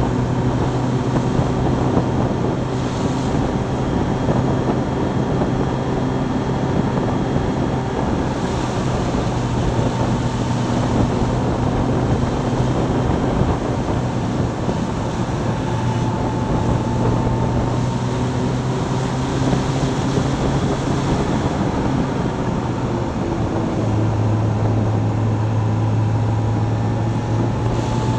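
Motorcycle engine running steadily at cruising speed, mixed with wind rush on the microphone and tyre hiss on a wet road; the engine note shifts about three-quarters of the way through.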